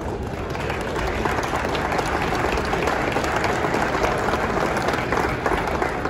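A crowd applauding, the clapping swelling about a second in and then holding steady.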